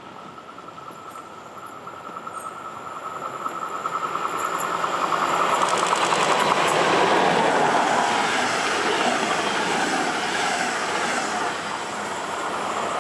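DB class 111 electric locomotive hauling double-deck passenger coaches approaches and passes at speed. A thin whine grows into a loud rush of wheels on rail, peaking about halfway through with a quick rhythmic clatter, then goes on steadily as the coaches roll by.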